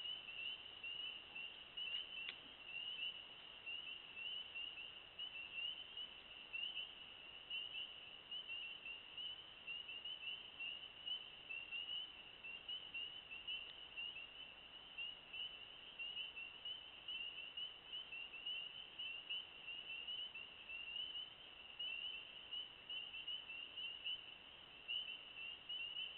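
Night chorus of frogs: many high-pitched short calls repeating and overlapping into one steady, even chorus. A faint click about two seconds in.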